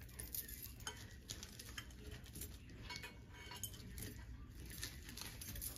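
Small metal jewellery pieces clinking and ticking against each other as they are handled, in faint, scattered light clicks.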